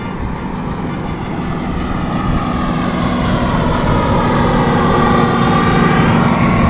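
Outboard engine of a passing powerboat, a steady drone that grows louder, its pitch slowly bending.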